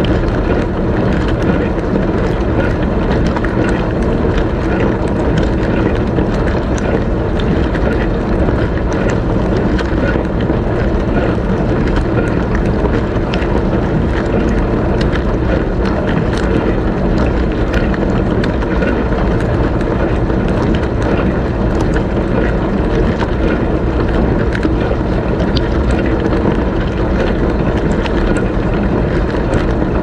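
Dishwasher wash cycle heard from inside the tub on the bottom rack: water from the spray arm pelts the camera and dishes in a steady loud rush, over a constant low hum from the pump, with scattered small ticks of drops striking.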